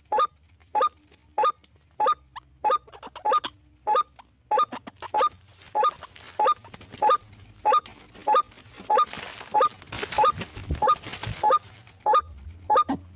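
White-breasted waterhen calling, a steady run of short harsh 'kruak' notes about twice a second.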